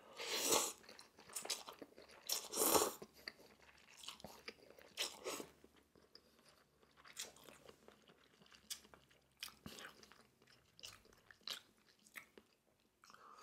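Close-miked eating sounds: Korean potato noodles slurped twice in the first three seconds, then chewing with scattered short wet mouth clicks and smacks.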